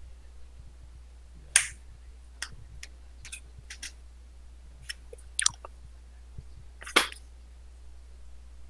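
Trading cards being handled on a playmat: a few sharp clicks and snaps as cards are picked up and set down, loudest about one and a half seconds in and again about seven seconds in, with fainter ticks between. A steady low hum underneath.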